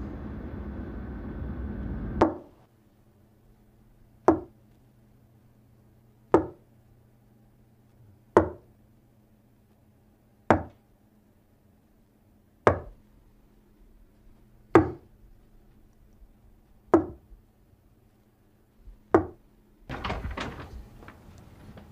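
Sharp knocks repeated evenly, about one every two seconds, nine in all, each ringing briefly over a faint low hum. A steady car-cabin rumble cuts off just before the first knock.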